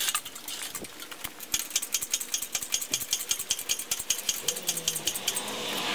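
Engine hoist lifting a hanging engine block: a fast run of light metallic clicks and rattles from the hoist and its chain, several a second. A faint hum comes in near the end.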